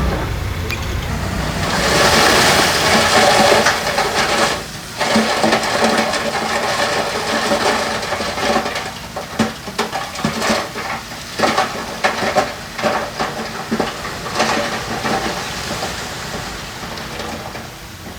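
Loose stone sliding and clattering, with many sharp knocks, over a steady diesel engine. The rush of stone starts about two seconds in and thins out into scattered knocks over the last few seconds.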